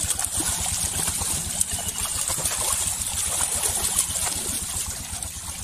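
Water splashing and churning as a crowded net of fish thrashes at the surface, a dense run of quick splashes.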